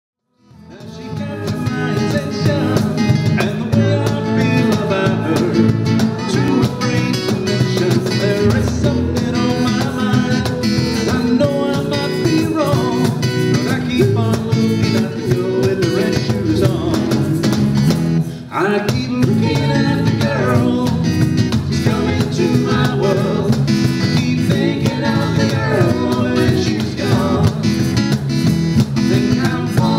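Live band playing a song with guitar, coming in within the first second and running on steadily, with a short dip in level about two-thirds of the way through.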